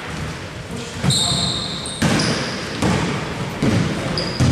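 Basketball being dribbled on the court, about one bounce a second, with a short high squeak about a second in.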